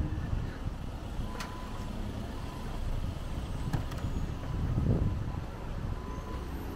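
Road traffic passing along a shopping street: a steady low rumble of cars and vans, with one vehicle passing louder about five seconds in.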